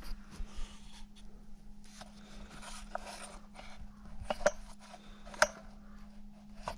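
Quiet handling noise: scattered light clicks and scrapes, the sharpest a little after four and five seconds in, over a faint steady hum.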